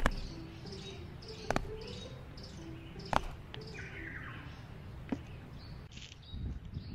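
Birds chirping in the background, cut by a few sharp knocks about a second and a half apart as a child's sneakers land on wooden stumps.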